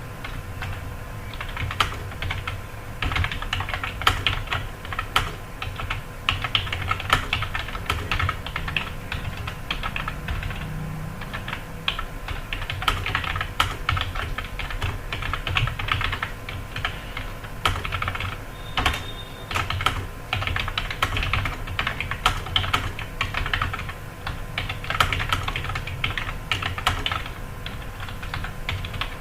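Fast, continuous typing on a computer keyboard, a dense run of key clicks with brief pauses, during a timed typing test.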